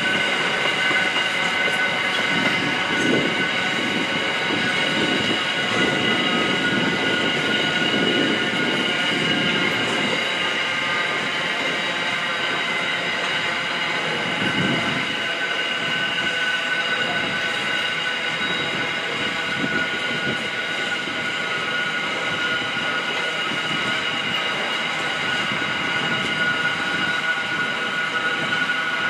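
Empty steel-train wagons rolling past, wheels rumbling with a steady high-pitched squeal in several tones held throughout.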